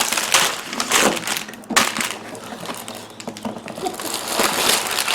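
Packaging being handled during an unboxing: plastic bags and cardboard rustling and crinkling, with a few sharp knocks.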